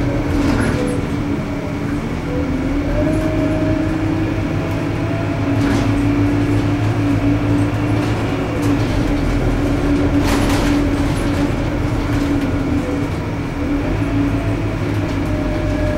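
Scania K230UB city bus driving, heard from inside the passenger cabin: a steady engine hum whose pitch rises and falls with engine speed, with a few short rattles.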